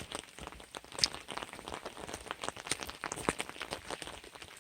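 Muddy runoff water trickling and splashing: a dense, irregular patter of small drips and splashes.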